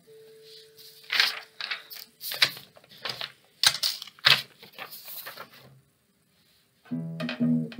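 A sheet of paper being handled and flipped, a run of sharp, irregular rustles and crackles. After a short pause, a classical guitar starts playing plucked notes near the end.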